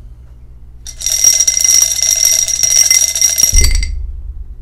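Two plastic dice rattling rapidly inside a clear cup as they are shaken for about three seconds, ending with a dull thump as the cup is brought down on the mat.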